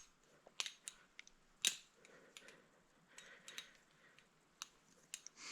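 Palethius Bowie balisong being flipped: irregular sharp metallic clicks and clacks of the handles and blade swinging on the pivots, with the loudest click a little under two seconds in.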